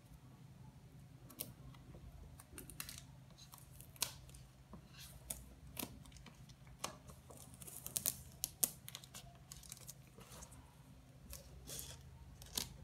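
Scissors snipping through clear plastic shrink-wrap on a phone box, with the film crinkling as it is cut and pulled: scattered sharp snips and short rustles, a few louder than the rest.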